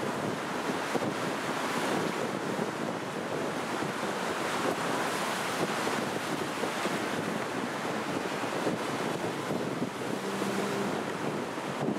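Atlantic Ocean surf washing against the shore: a steady rushing hiss that swells and eases.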